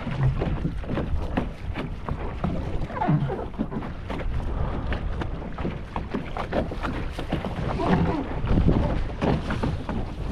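Water splashing and slapping along the hull of a Sunfish sailing dinghy under sail, with wind buffeting the microphone.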